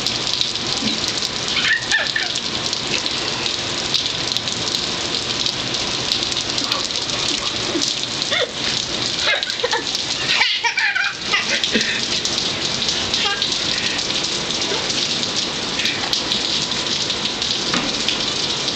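Steady heavy rain falling on a concrete balcony and the yard around it. A toddler's short high-pitched babbles and squeals come through a few times, most around the middle.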